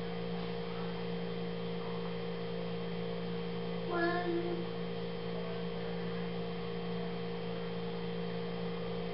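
Steady electrical mains hum, with one brief pitched squeak about four seconds in.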